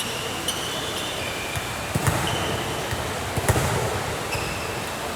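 A basketball bouncing on a gym court, several sharp thumps, with short high squeaks of sneakers on the floor over the steady hum of the hall.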